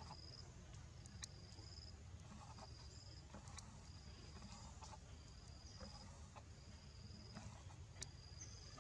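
An insect chirping faintly in the forest: short, even, high-pitched calls of about half a second each, repeating roughly once a second, with a few faint clicks between them.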